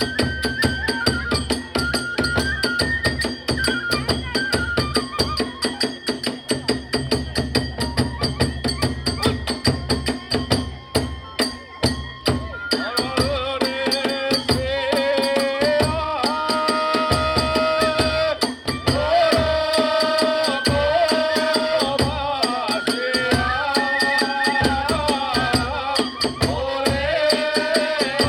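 Kagura ensemble music: fast, continuous drum and small hand-cymbal beats, with a melody line that comes in louder about halfway through.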